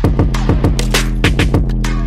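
Background music with a steady drum beat over a held bass line.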